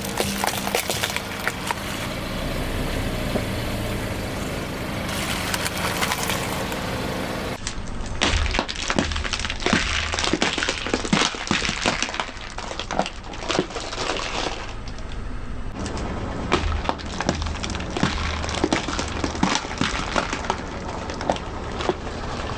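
Brittle objects cracking and crunching under a car's tyres: a dense run of snaps and crackles, with a car engine running low underneath. The character changes abruptly about a third of the way in.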